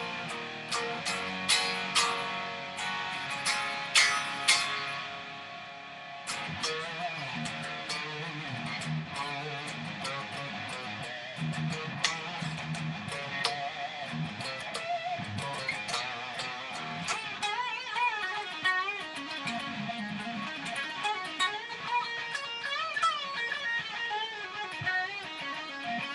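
Electric guitar played solo: a few loud strummed chords at first, then from about six seconds in a stretch of single-note picking whose notes waver in pitch with bends and vibrato.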